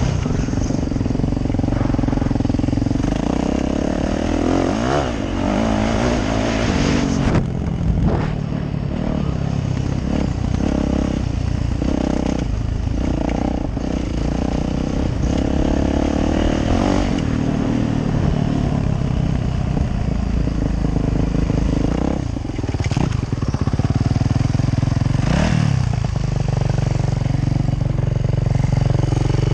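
Yamaha YZ450F four-stroke single-cylinder dirt bike engine being ridden, revving up and down, heard from the rider's helmet with knocks and clatter from the rough track. Near the end, as the bike goes down, the engine settles to a steady idle.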